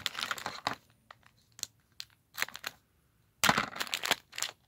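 Plastic foil minifigure blind bag crinkling in the hands as it is worked open, in scattered crackles with short quiet gaps, and a louder spell of crinkling about three and a half seconds in.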